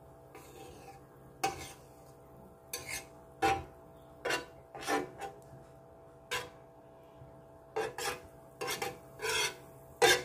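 Butter being spread across a large flat nonstick pan: about a dozen short, irregular rubbing strokes of the utensil on the pan surface.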